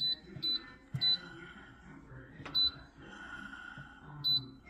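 Nuwave Brio air fryer oven's touch control panel beeping with each press of its arrow buttons: about five short high beeps, spaced irregularly, as the cooking time is set.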